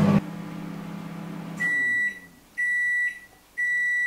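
Russell Hobbs microwave oven ending its cycle. Its low running hum winds down about one and a half seconds in, and then it beeps three times, about once a second, to signal that the food is done.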